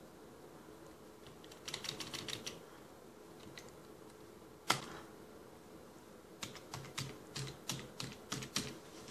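Typing on a computer keyboard: a quick burst of keystrokes about two seconds in, one louder keystroke near the middle, then a run of about ten keystrokes at roughly four a second, over a faint steady hum.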